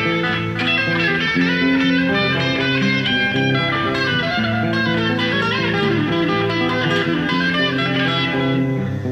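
Electric guitar being played: a line of plucked notes over held lower notes.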